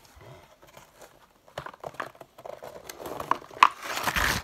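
A subscription tackle box being opened by hand: packaging crinkling and tearing, with scattered taps and clicks. It gets busier and louder in the last second and a half, then stops suddenly.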